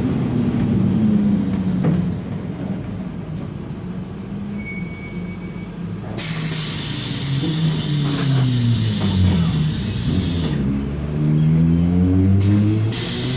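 Mercedes-Benz OF-1721 BlueTec 5 bus's diesel engine and driveline running under way. The engine pitch falls and then climbs again in the second half. A loud hiss starts about six seconds in and lasts several seconds.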